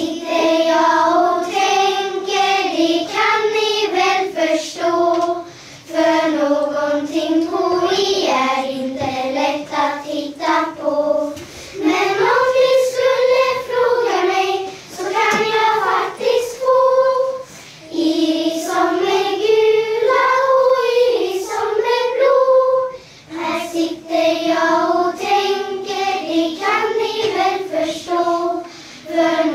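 A class of young children singing a song together, in phrases of about six seconds with short breaks for breath between them.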